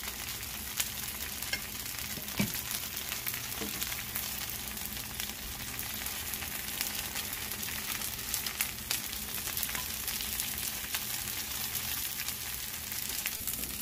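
Bánh xèo, a thin Vietnamese rice-flour pancake topped with shrimp and squid, frying in an uncovered skillet: a steady sizzle with scattered small pops as the batter hardens and the lacy edges crisp.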